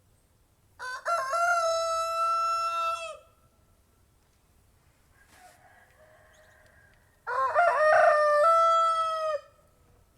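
Rooster crowing twice, about six seconds apart; each crow lasts about two seconds, a few short rising notes followed by a long held note that drops at the end. A fainter, more distant crow sounds between them.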